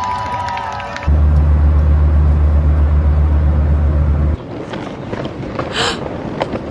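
Street-show music fades out within the first second. Then comes the steady low drone of a jet airliner cabin in flight, loud and unchanging for about three seconds, which cuts off abruptly. After it, quieter roadside traffic noise with a couple of brief whooshes.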